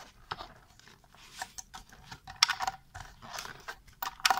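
Hands working the plastic base plate of an Acer V226HQL monitor stand loose from the stand: irregular plastic clicks, scrapes and rattles, the sharpest about halfway through.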